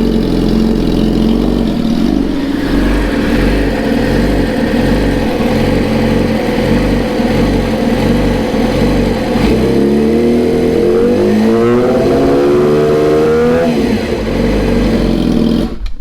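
Yamaha R6 inline-four sport bike with an aftermarket exhaust, loud, idling with a steady pulse, then revved once about ten seconds in. The pitch climbs for about four seconds toward roughly 5,000 rpm, then drops back. The sound cuts off abruptly near the end.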